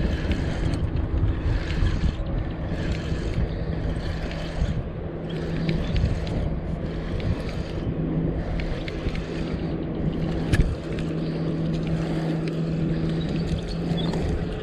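Water sloshing and wind buffeting around a camera at the waterline, with a steady low hum throughout and a single sharp click about ten and a half seconds in.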